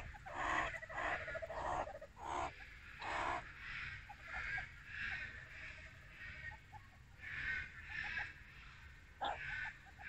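Meerkats play-fighting: a string of short, harsh calls, with a few low, rapidly pulsing trills between them.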